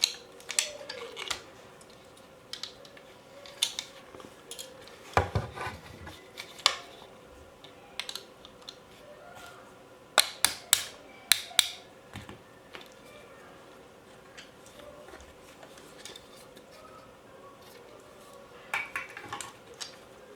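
Small metal and plastic parts of a Cyma 040 airsoft AK clicking and clinking as the rifle is taken apart by hand. The sounds come in scattered groups, with a heavier knock about five seconds in and a quick run of sharp clicks around the middle.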